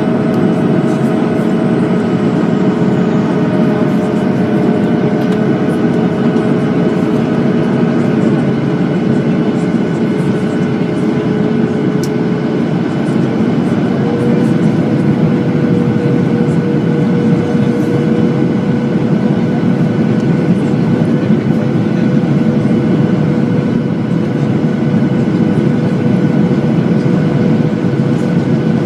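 Airliner cabin noise during the approach: the steady rush of the engines and airflow, with an engine tone that steps up slightly in pitch about halfway through.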